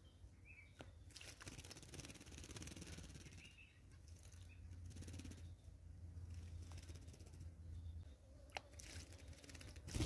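Quiet outdoor ambience with a few faint, short bird chirps and soft rustling. At the very end a small bird starts splashing as it bathes in shallow water.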